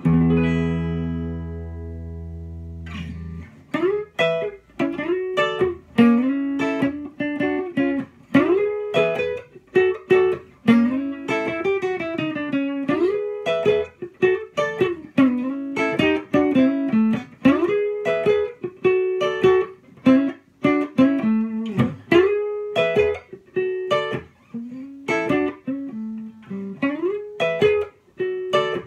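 1962 Framus New Sound thinline archtop electric guitar, played through an amp. A struck chord rings for about three seconds, then an improvised run of single-note lines with frequent bent notes.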